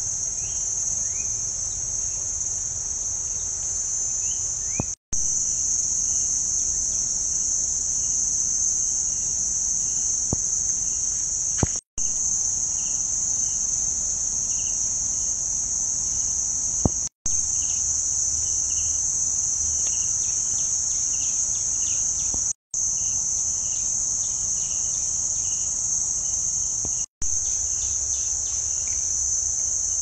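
A steady, high-pitched chorus of insects, breaking off for a split second about every five or six seconds.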